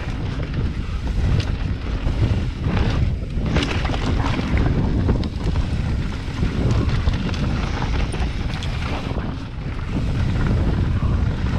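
A mountain bike rolling fast down a loose dirt singletrack: wind buffets the microphone over the steady rumble of the tyres on dirt, with frequent sharp clicks and rattles over the rough ground.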